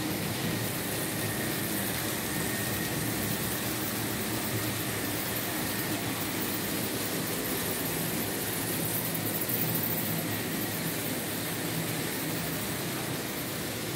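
Märklin H0 model trains running on the layout: a steady whir of the locomotive motor and the rolling of the coaches along the metal track.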